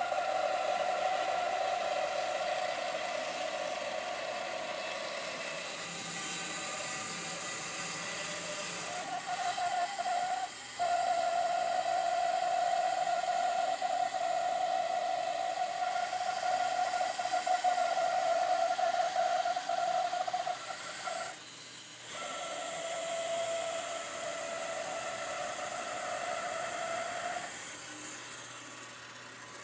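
Bandsaw with a 3/8-inch wood blade ripping through a green cherry log: a steady whine with a hiss of sawing, briefly dropping out a few times.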